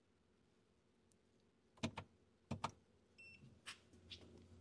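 Faint clicks as the car's ignition is switched off and back on for a key cycle, then brief faint high beeps and a low hum coming up near the end as the car's electronics power back on.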